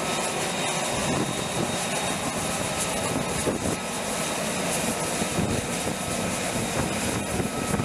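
F-35B Lightning II jet engine running, a steady rushing noise with a faint high whine on top.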